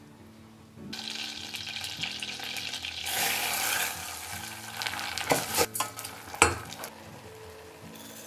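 Butter and oil sizzling in a hot stainless steel saucepan, the sizzle starting about a second in and getting louder as dry orzo is tipped into the fat. Near the middle the orzo is stirred, with a few sharp knocks against the pan, the loudest about six seconds in.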